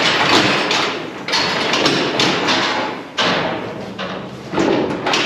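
Steel cattle crush banging and clattering with a bullock held in it: about four loud knocks, each fading out slowly.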